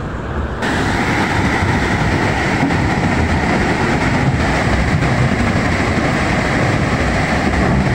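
Fast-flowing muddy floodwater rushing past in a loud, steady wash of noise.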